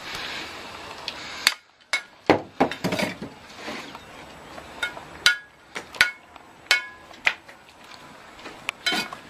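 Fired clay bricks and a steel trowel clinking and knocking as bricks are set by hand, a dozen or so sharp strikes at uneven intervals, several with a short ringing tone.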